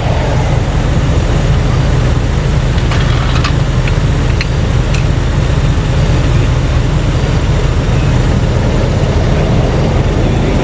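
Heavy vehicle engine idling with a steady low drone, with a few light metallic clicks about three to five seconds in.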